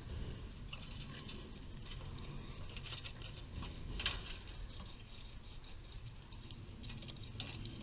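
Scattered light knocks, scrabbling and rustling from timbers being shifted on a woodpile while a dog searches through it for rats, with one sharper knock about four seconds in. Wind rumbles low on the microphone.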